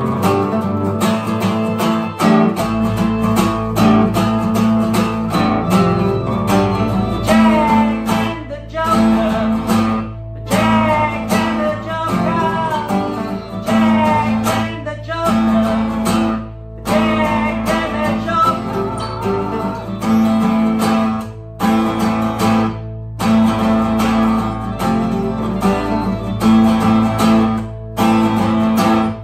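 Small band playing: two acoustic guitars strummed, with a keyboard.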